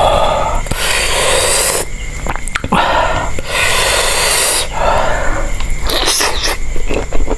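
Close-miked mouth and breath sounds of a person eating: several loud airy bursts, each up to about a second long, with small clicks and taps between them.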